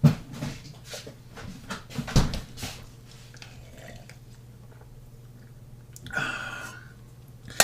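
A plastic soda bottle and glass being handled as Mountain Dew is poured: a run of small knocks and clicks, the loudest about two seconds in, then a short rushing sound about six seconds in and a sharp click at the end.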